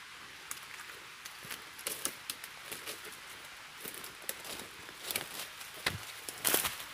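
Footsteps crunching on dry leaf litter as two people walk up close, the crunches growing louder and denser toward the end, over a steady background hiss.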